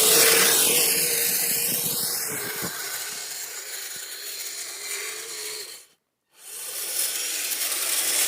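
Electric motor and drivetrain of a radio-controlled tracked snow vehicle whining as it is driven against a big rock it is stuck on, the pitch dipping and rising about a second or two in. The sound cuts out briefly about six seconds in.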